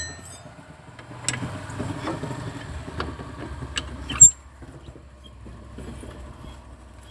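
Hand-tool clicks and metal taps on the car's front brake assembly as a loose part is tightened, with one loud metallic knock about four seconds in.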